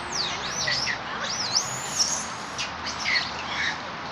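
Birds chirping, a run of high calls that sweep up and down in pitch, over a steady background hiss.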